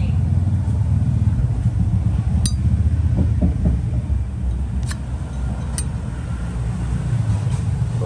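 Steady low background rumble, with three sharp clicks spread through the middle.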